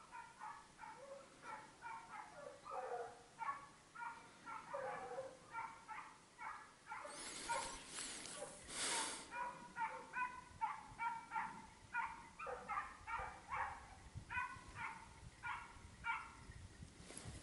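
Pack of hunting hounds baying on the trail of a wild boar, a continuous run of faint yelps several a second. A short rustle about halfway through.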